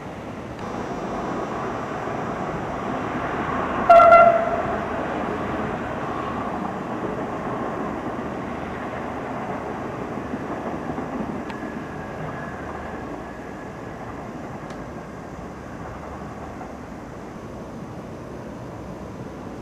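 Italian regional train of MD coaches hauled by an E656 electric locomotive running through the yard, the rolling noise swelling about half a second in. One short blast of a train horn about four seconds in is the loudest sound, and the running noise eases to a steady lower level later on.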